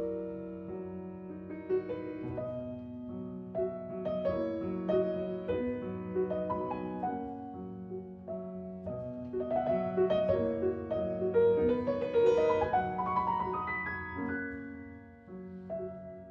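Background piano music: a steady run of notes over held lower notes.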